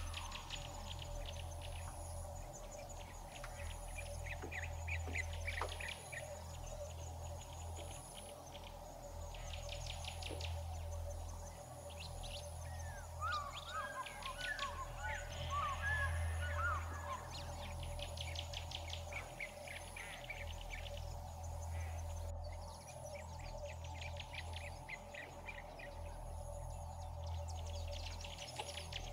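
Birds chirping with repeated rapid trills, and a burst of twittering chirps about halfway through, over a steady low hum.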